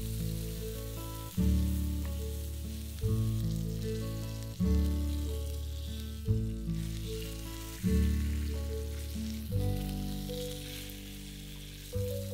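Pork shoulder sizzling as it sears in hot olive oil in a frying pan. Over it plays background music, a new soft chord struck about every second and a half and fading away, louder than the sizzle.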